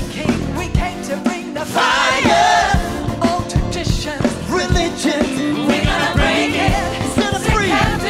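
Live worship band playing, with a woman singing the lead vocal into a microphone over a steady drum beat.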